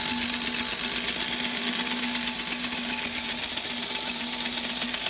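DeWalt electric drill running steadily as it bores into the Catalina 25's cast-iron swing keel, the bit lubricated with oil. It is a constant high whine over a low hum, dipping slightly in pitch about three seconds in.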